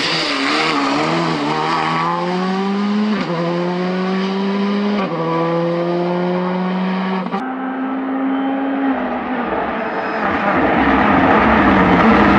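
Rally car accelerating hard away up a mountain road, engine note climbing and dropping back through several quick upshifts before fading out. Near the end the approach of a Hyundai i20 N Rally2 builds as a rising rush of engine and tyre noise.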